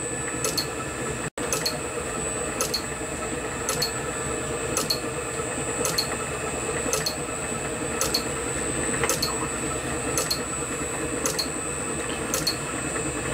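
Steady machine hum with faint, even ticks about once a second.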